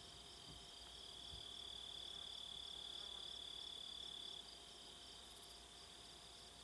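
Faint insects chirring: a steady high buzz that stops about four seconds in, over a softer, evenly pulsing trill.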